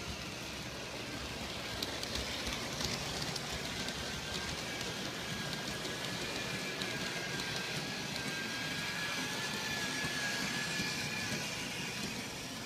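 G scale model train running along its track: a steady rumble of wheels on the rails with a thin electric motor whine. It grows a little louder through the middle as the locomotive passes close, then eases off near the end.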